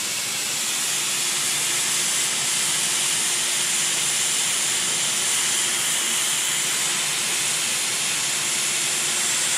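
Hot-air plastic welding gun blowing a steady hiss of air while welding polypropylene, fed with zero air rather than nitrogen. A faint steady hum runs underneath.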